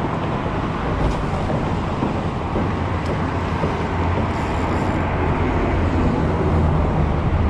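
Steady low rumble of road traffic on the concrete highway bridge overhead, swelling slightly near the end.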